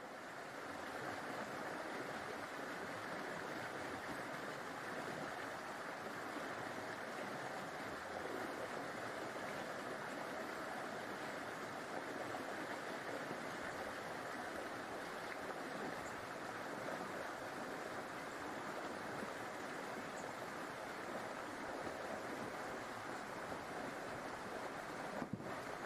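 Steady rushing noise, with a brief click near the end.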